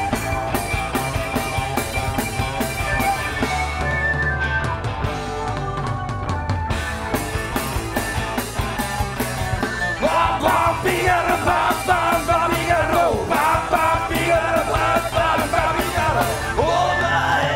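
Live rock band playing loudly: drum kit, electric guitars and bass in a steady beat. About ten seconds in, a wavering lead line with bending pitch comes in over the band.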